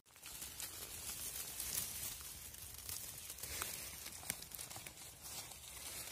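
Dry leaves and twigs rustling and crackling close to the microphone as a hand pushes through forest litter and moss to grip a mushroom, with a few small sharp snaps.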